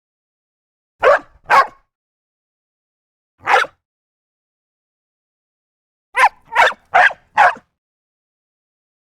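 A dog barking: seven short sharp barks with dead silence between them. Two come about a second in, one comes a couple of seconds later, and a quick run of four comes near the end.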